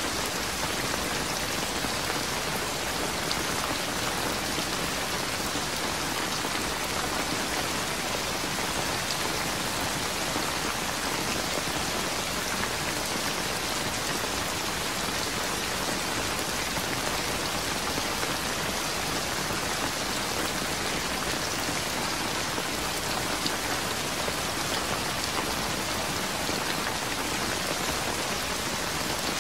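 Steady rain falling, an even, unbroken hiss of drops with no thunder.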